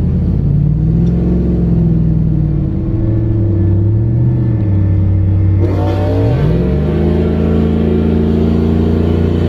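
Cammed 5.3 L V8 pickup engine heard from inside the cab, running with the revs rising and falling gently. About six seconds in the pitch climbs and then holds steady higher as the truck accelerates.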